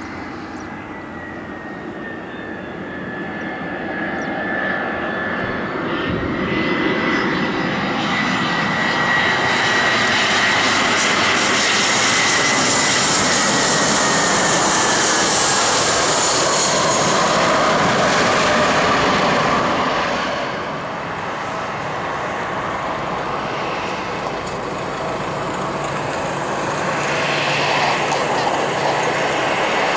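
Jet engines of a TAP Airbus A320-family airliner landing. A high whine falls slowly in pitch as the noise grows to its loudest around touchdown. It dips suddenly at about two-thirds of the way through, then rises again as the jet rolls out along the runway.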